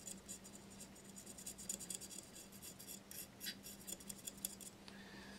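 Faint rapid scratching and tiny clicks of a thin clear applicator rod drawn along the broken edge of a porcelain piece, spreading Hxtal epoxy; the scratching stops near the end. A faint steady low hum runs underneath.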